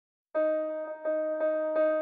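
Background music: a keyboard note struck over and over at the same pitch in an even pulse, starting about a third of a second in.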